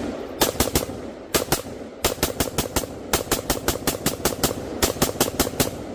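Rapid semi-automatic gunfire: a long string of shots at about three to four a second, broken by brief pauses.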